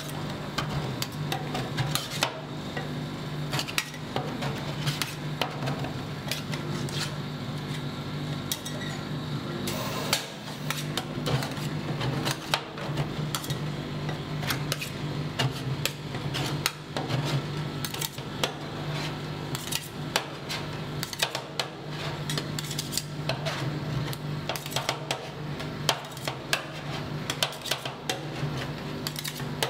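Two metal spatulas chopping, scraping and tapping on a steel cold plate as freezing ice-cream base is worked into rolled ice cream, giving quick irregular clicks and clacks, over a steady low hum.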